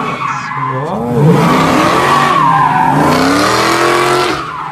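Classic Chevrolet donk doing tire-smoking donuts: the engine revs up and down while the spinning rear tires screech, and the screech drops away near the end.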